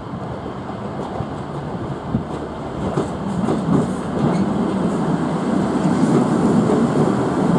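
Class 158 diesel multiple unit approaching and passing close beneath, its diesel engines running under power and its wheels clicking over pointwork. The rumble grows louder about three seconds in as the train draws near.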